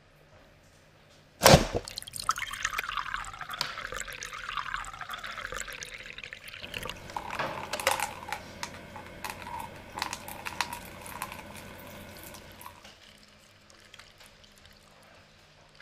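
A sharp knock about a second and a half in, then liquid pouring from a tipped carton of oat milk into a cup, with small clicks and rattles from a plastic construction-toy mechanism. It quietens about three seconds before the end.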